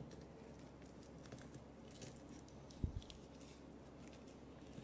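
Faint handling noise of hands tying string around a couch's metal springs to fix a broken one: light rustles and small clicks, with one dull thump just under three seconds in.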